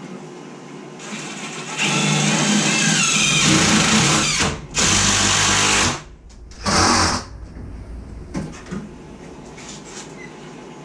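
Power drill running in three bursts: a long first run whose pitch drops as it works, a shorter second run, and a brief third one.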